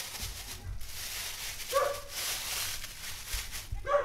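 A thin plastic bag crinkles as it is worked around a tractor's starter. A dog barks twice over it, once about two seconds in and once near the end.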